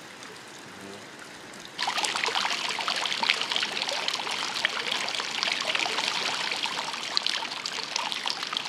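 Water pouring and splashing from temple water spouts, a dense splattering rush that starts abruptly about two seconds in after a fainter hiss.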